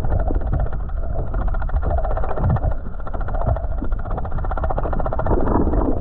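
Bladed jigs (chatterbaits) being reeled through the water, heard through an underwater camera: a dense, rapid rattling chatter of the vibrating blades over a low water rumble.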